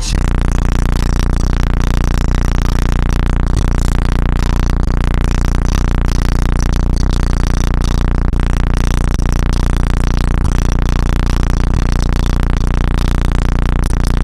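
A loud, steady low bass tone played through a powerful sound system, starting abruptly and holding one pitch with distorted overtones.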